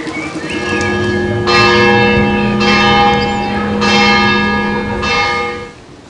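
Church bell ringing, struck about four times a little over a second apart, its low hum ringing on beneath the strikes. The ringing cuts off abruptly near the end.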